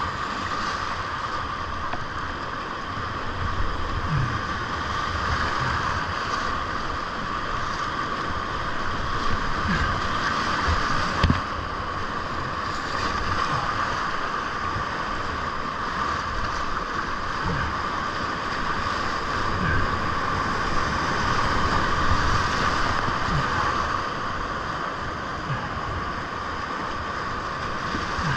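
Whitewater rapids on a creek running at about 1,600 cfs, rushing steadily around a kayak and heard close up, with occasional splashes and low thumps as waves break over the boat.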